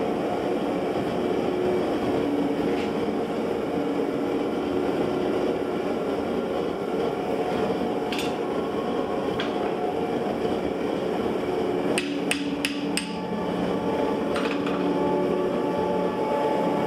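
A quick run of about five sharp metal-on-metal strikes at the vise, about twelve seconds in, while red-hot steel spatula handles are twisted in a blacksmith's vise. Under them runs a steady shop hum, with a couple of single clicks.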